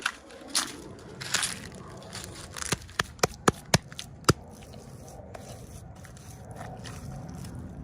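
Plastic toy packaging being handled and opened, crinkling, then a run of about six sharp clicks in quick succession a little before halfway, followed by quieter rustling.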